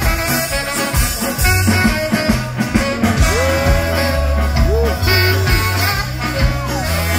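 Ska band playing live: trombone over saxophone, bass, drums and keyboard on a steady bass line. The lead notes slide up and down in pitch from about three seconds in.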